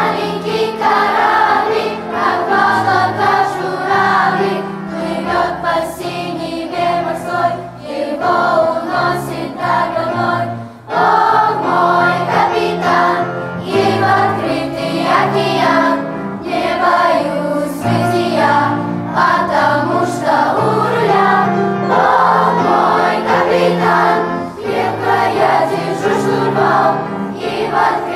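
Children's choir singing in unison, backed by low held instrumental accompaniment notes. The singing begins at the very start, with a brief breath-pause about eleven seconds in.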